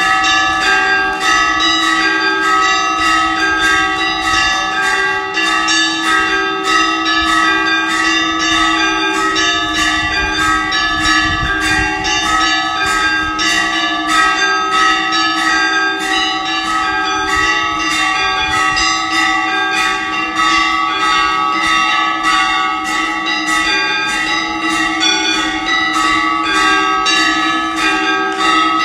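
Temple bells rung without a break for aarti. They are struck several times a second, so their tones overlap into one steady, layered ringing.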